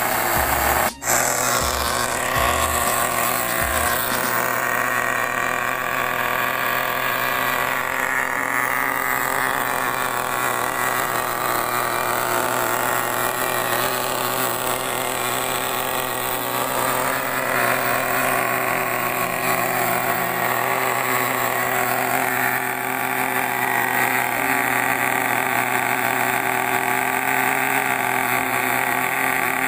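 Small nitro glow-fuel engine of a radio-controlled monster truck idling steadily, with a brief dropout about a second in.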